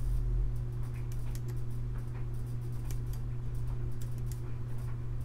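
Scattered light clicks and ticks of a ribbon cable and small tools being handled on a workbench, over a steady low hum.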